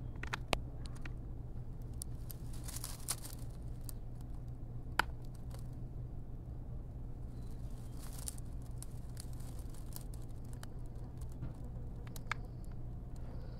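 Intermittent rustling and crinkling with a few scattered light clicks over a steady low hum, with two brief louder patches of rustling, about three seconds in and about eight seconds in.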